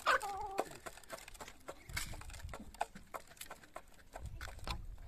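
Chickens pecking corn from a plastic bottle feeder, their beaks tapping the plastic in quick, irregular clicks. A short hen call of about half a second comes right at the start.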